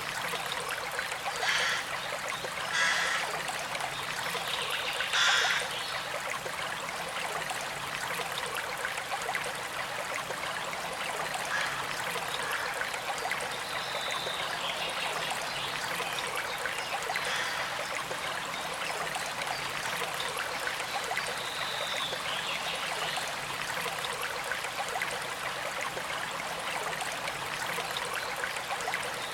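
Stream trickling and running steadily, with three short, loud calls in the first six seconds and a couple of high, thin whistled notes around the middle.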